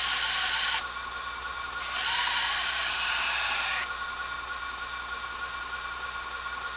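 Belt grinder running with a 120-grit belt, a steel knife blade pressed to the belt in two short grinding passes that hiss: one right at the start and one from about two seconds in, lasting nearly two seconds. The passes are putting a convex edge on the blade, thinning a spot that is still thick. After about four seconds the grinder runs on with nothing against the belt.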